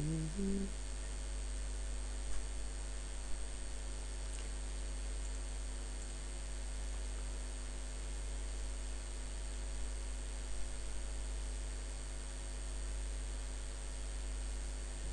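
Steady low electrical mains hum with a faint hiss, broken by a few faint clicks.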